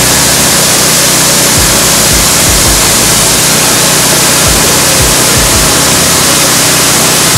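Coffee-hulling machine running loudly and steadily, a dense even mechanical noise with a low hum underneath.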